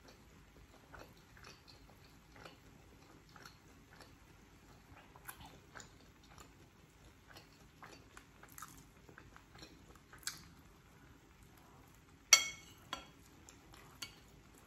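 Metal spoon scooping through fried rice in a bowl: soft scrapes and small clicks, then one sharp ringing clink of the spoon against the bowl's rim about twelve seconds in, followed by two lighter taps.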